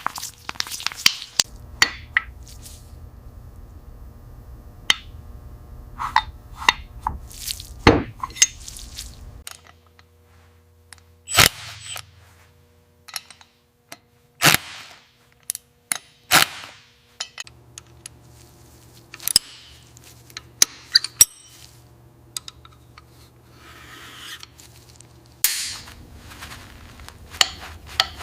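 Metal tools and parts clinking and knocking, many separate sharp strikes, over a low steady hum that stops for a while midway and comes back.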